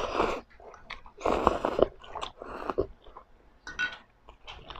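A person slurping and chewing spicy ramen noodles: a few short, noisy slurps with chewing between them.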